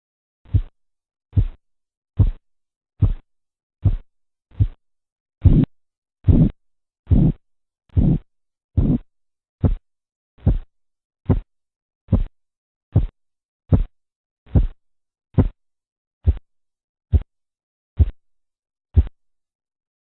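Korotkoff sounds, the pulse thumps heard over the arm's artery as a blood-pressure cuff deflates: about 23 beats at roughly 70 a minute. They grow louder and longer in the middle, then fainter, and stop shortly before the end, as the falling pressure reaches the diastolic level.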